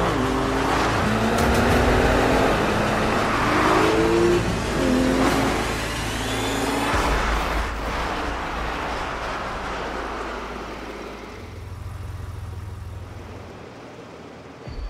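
Porsche 911 Turbo turbocharged flat-six engines accelerating hard, the engine note climbing and dropping back several times as the cars shift up through the gears, then fading away over the last several seconds.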